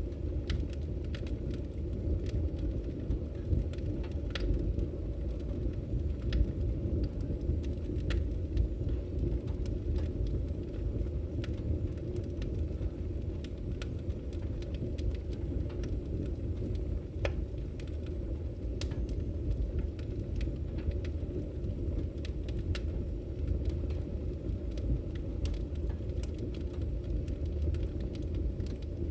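Fire burning in a fireplace: a steady low rumble of flames with irregular sharp crackles and pops from the burning wood.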